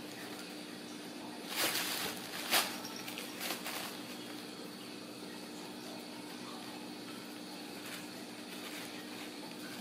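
Tissue and wrapping paper rustling and crinkling in a few short bursts between about one and a half and four seconds in, as a Ragdoll kitten moves underneath it. A steady low hum runs in the background.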